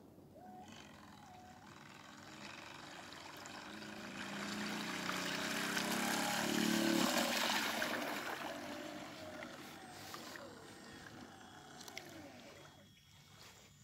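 Battery-powered fiberglass RC boat running on the water: the electric motor whine, wavering in pitch, and the hiss of the hull through the water swell as it speeds close by, loudest about seven seconds in, then fade as it slows.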